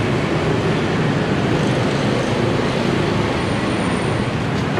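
Steady traffic noise from a busy road, an even rush of passing motorbikes and vehicles.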